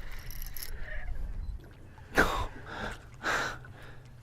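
Two short, heavy breaths, about a second apart, from an angler straining to play a big fish on the rod, over a low rumble.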